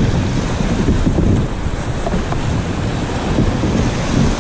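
River rapids rushing and splashing around the kayak, with a heavy, gusting rumble of wind and spray buffeting the microphone.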